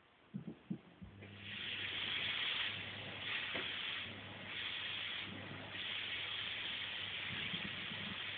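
Vacuum cleaner running: a steady hiss over a low motor hum that comes up about a second in and then swells and dips several times. A few light taps come just before it.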